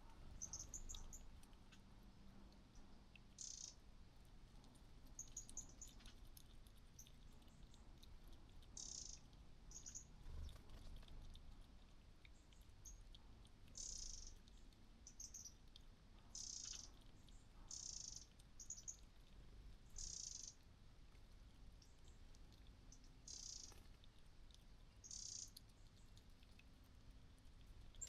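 Faint, short high-pitched chirps repeating irregularly, about a dozen in all, over a low background rumble.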